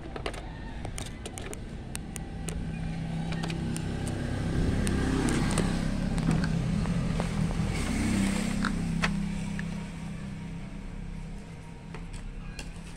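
A motor vehicle's engine going past, its low hum swelling to a peak about halfway through and then fading, with small clicks and taps of plastic printer parts being handled.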